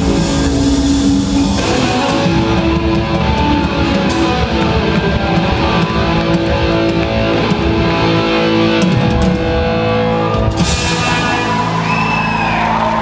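Live rock band playing loudly: distorted electric guitars, bass and a drum kit with cymbals, heard from the audience in a concert hall. About ten and a half seconds in, the bright top of the sound drops away as the song thins out.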